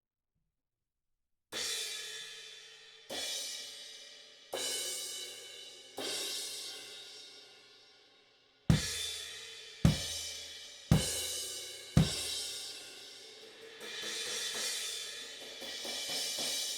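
K Zildjian Dark Crash cymbal struck four times on its own, each hit ringing out and decaying. Then four crashes about a second apart, each together with a bass drum kick. Then quicker strokes build into a continuous cymbal wash.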